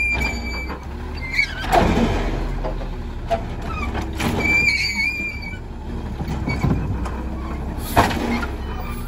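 Labrie Automizer side-loading arm on an Autocar WX garbage truck cycling a recycling cart. The arm gives a high screech twice, briefly at the start and again for about a second around four seconds in. There are knocks as the cart strikes the hopper about two seconds in and near the end, over the steady run of the truck's natural-gas engine.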